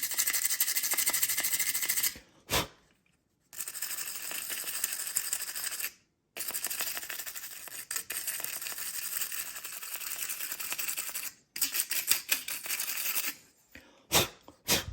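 Brass wire brush scrubbing corrosion off a digital door lock's battery contacts in fast back-and-forth strokes, stopping briefly three times, with a couple of sharp taps.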